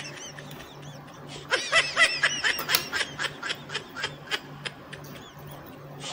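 High-pitched giggling laughter: a quick string of short squealing bursts that starts about a second and a half in and tapers off by about four and a half seconds, over a low, steadily pulsing hum.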